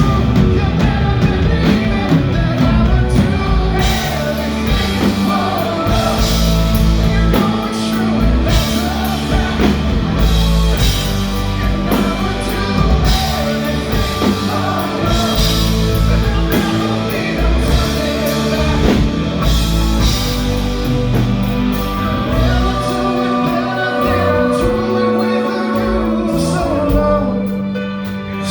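Live rock band playing with drum kit, bass and a lead singer.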